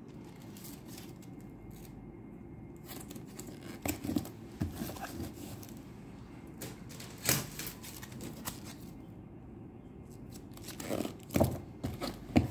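Packaging being handled on a table: scattered short rustles and sharp clicks from a cardboard carton and its paper shipping label over a low steady room noise. The sharpest click falls just past the middle, and a busier patch of rustling comes near the end as hands press and smooth the label.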